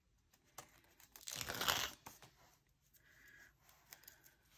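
A washi sticker strip peeled off its backing sheet: one brief papery rasp about a second in, then faint paper handling and small clicks as the strip is laid on the planner page.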